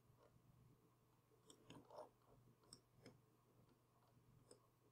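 Near silence with a few faint computer mouse clicks, the most distinct about two seconds in.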